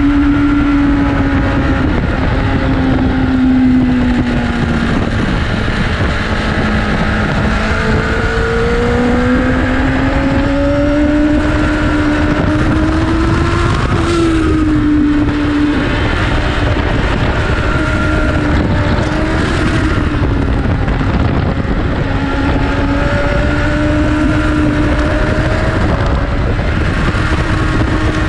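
Inline-four superbike engine running hard, its pitch climbing and falling with throttle and gear changes, over a steady rush of wind.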